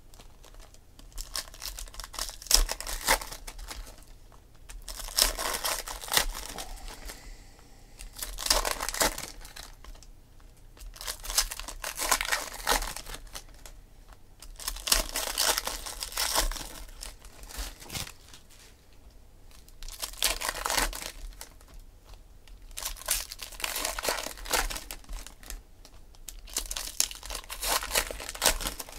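Foil trading-card packs torn open and crinkled by hand, in about eight bursts of crackling a few seconds apart, with quieter gaps between.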